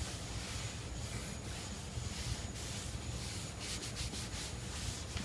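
A towel rubbing back and forth over the textured plastic rear panel of a Yamaha FJR1300 motorcycle, wiping it down to rinse off dust, with a steady scrubbing hiss.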